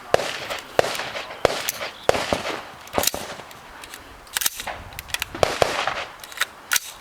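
Rifle shots fired in an irregular string during an IPSC rifle stage: a dozen or more sharp cracks over several seconds, some in quick pairs, with short pauses between.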